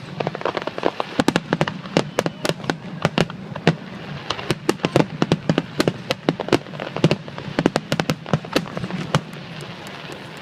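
Aerial fireworks bursting in a dense, rapid barrage: many sharp bangs and crackles, several a second, at irregular intervals.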